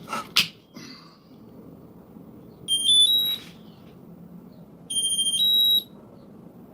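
Cfly Faith 2 drone's electronic power-up beeps as the battery is connected: a short rising run of three tones about three seconds in, then a rising two-note beep about two seconds later. A few clicks of handling come just before.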